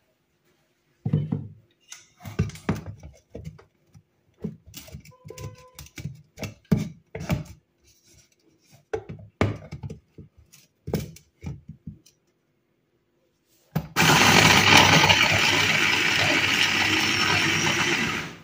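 Scattered plastic knocks and clicks as the electric mini chopper's bowl and motor top are handled and fitted together, then the chopper's motor running loudly and steadily for about four seconds as its blade chops frozen strawberries, cutting off just before the end.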